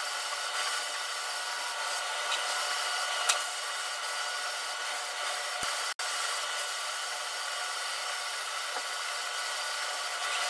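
Hose-fed HVLP spray gun spraying semi-gloss finish onto a wooden tabletop: a steady hiss of air and atomised finish. It cuts out abruptly for an instant about six seconds in.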